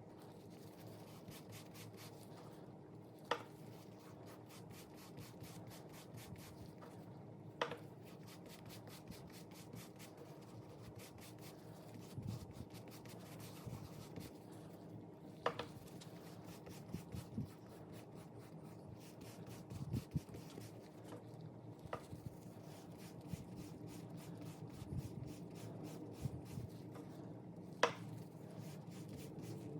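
Faint rubbing on a leather wallet, as in working dressing into or buffing the leather, with soft low knocks and five sharp clicks scattered through it.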